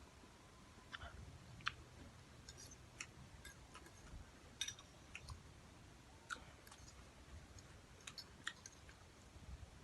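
Faint mouth sounds of someone chewing spicy instant cup noodles: short wet clicks scattered at irregular intervals.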